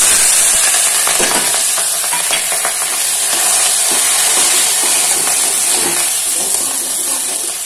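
Hot oil tempered with mustard seeds, cumin, asafoetida and curry leaves in a pressure cooker sizzling loudly the moment fresh ingredients are dropped in, with a spoon stirring and knocking through it now and then. The sizzle eases a little toward the end.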